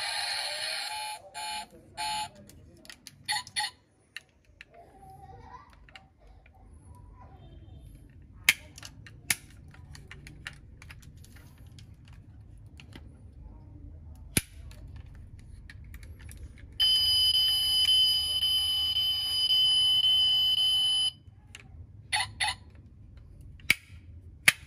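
Die-cast toy car being handled: a loud noise from its battery sound module breaks off in the first two seconds, and a few sharp clicks come from its small metal doors and parts. Later, for about four seconds, the sound module plays a steady electronic tone, the loudest sound here.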